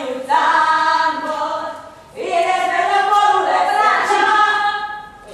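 Voices singing long, held notes in two phrases: a short one, then after a brief break a longer one that swoops up into its first note.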